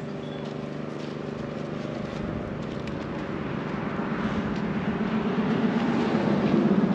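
An engine running steadily with an even hum, growing louder toward the end.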